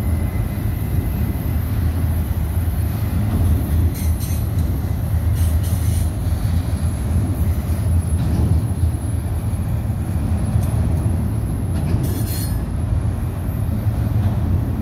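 Autorack freight cars rolling past on steel wheels, a loud, steady low rumble on the rails. A few brief high-pitched sounds cut in, the longest about twelve seconds in.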